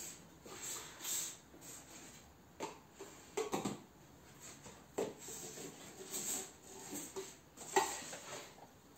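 Plastic cups being pulled off nested stacks and set down on a wooden table: soft rubbing and sliding broken by several light hollow clacks as cups are placed.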